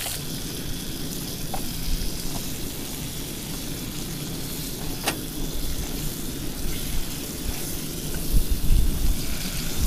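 Rainbow trout frying in butter in a pan on a portable camp stove: a steady sizzle. A single sharp click about five seconds in, and a few low bumps near the end as the fish is handled.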